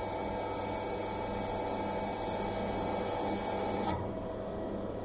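Hydraulic unit running with a steady mechanical hum and a hiss while the joystick drives the multi-way valve. The hiss drops away suddenly about four seconds in.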